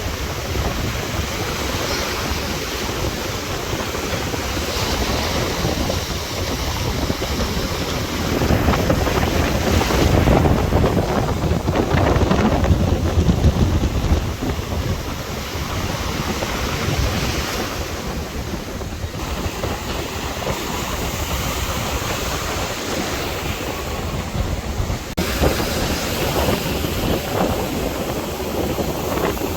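Sea waves washing in and breaking, the surf swelling louder and falling back in slow surges, with wind rumbling on the microphone.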